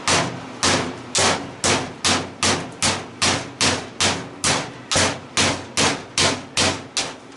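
Steady hammer blows on a scrap electric motor, a little over two strikes a second, each a sharp metallic impact with a short ring, knocking the motor apart to get at its copper windings.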